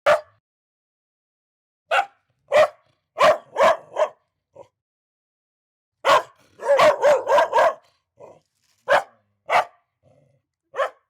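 Angry dog barking in irregular volleys, with a quick run of about five barks in the middle and single barks either side.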